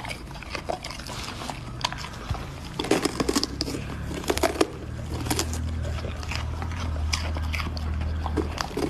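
A golden retriever biting and crunching into a raw green bell pepper: a run of crisp, sharp snaps, thickest about a third of the way in, with a low steady hum underneath in the second half.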